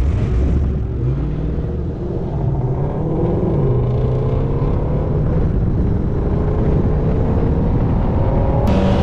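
Big V8 engines accelerating from a near stop, the engine note rising steadily in pitch as the cars build speed: mainly the 392 HEMI Scat Pack with BBK headers and a K&N cold-air intake, running alongside an E85, cat-deleted Shelby GT350.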